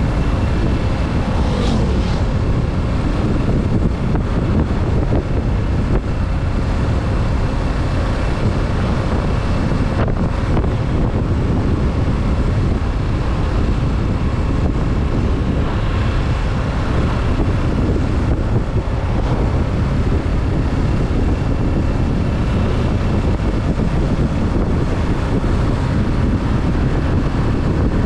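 Steady wind rush over the microphone of a moving Kawasaki Z650 motorcycle, with its parallel-twin engine running underneath at an even pace and no revving.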